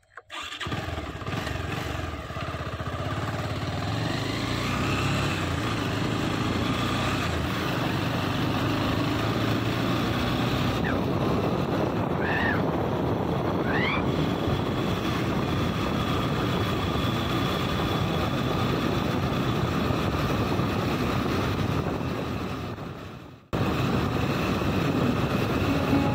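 Motorcycle running steadily on the move, with a steady rush of wind over the microphone. A few short rising chirps come around the middle, and the sound cuts out abruptly about three seconds before the end, then resumes.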